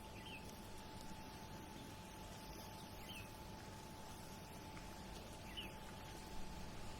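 Steady low background of harbour and city noise with a faint constant hum, and a small bird giving a short high chirp three times, about every two and a half seconds.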